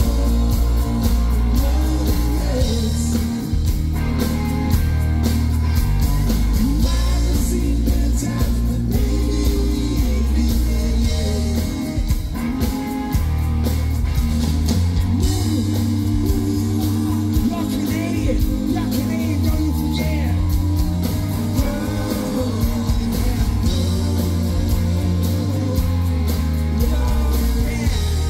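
Live rock band playing: electric guitars, bass guitar and drum kit, loud and steady throughout.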